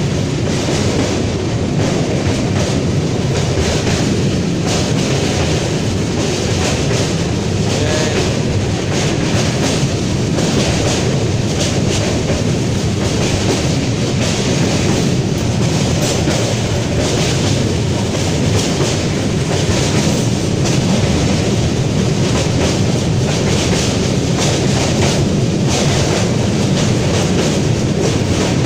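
Express passenger train running over a river bridge, heard from inside a coach: a steady rumble with irregular clatter from the wheels.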